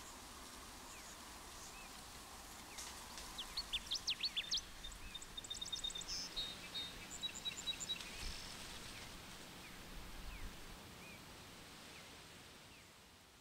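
Quiet forest ambience: a steady outdoor hiss with scattered bird chirps and quick trills in the middle, fading out near the end.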